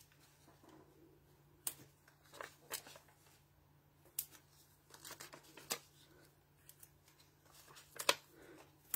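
Faint handling of paper and cardstock: a few scattered light taps and rustles as adhesive foam dots are taken from their sheet and pressed onto a small cardstock banner.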